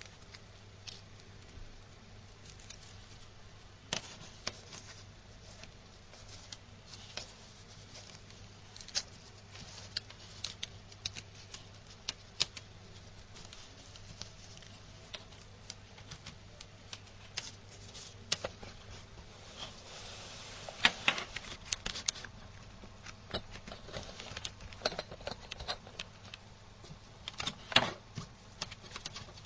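Irregular clicks, taps and small rattles of a steel wrist watch phone being handled and a USB cable being plugged into it, over a low steady hum.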